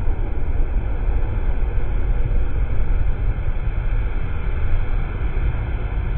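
Heavy surf of a rough Mediterranean sea after a storm, breaking on a sandy beach: a steady, loud rush of waves with a deep rumble underneath.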